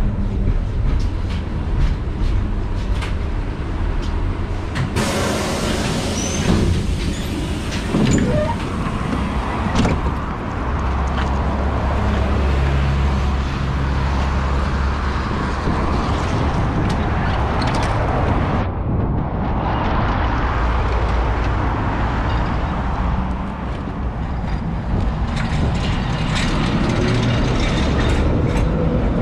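LVS-86K articulated tram: first heard from inside as it rolls to a stop, then from the roadside as it stands with a steady low hum, and then starts to move off past, its wheels running on the rails.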